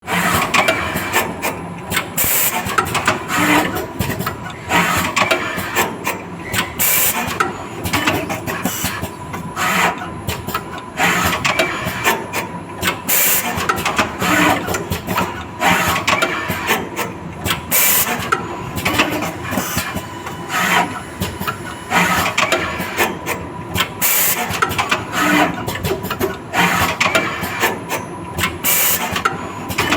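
Automatic copper-strip wire-welding machine running through its cycle: continuous mechanical clatter from the stepping feed conveyor and wire-pulling mechanism, with sharp clicks or knocks every second or two over a steady whine.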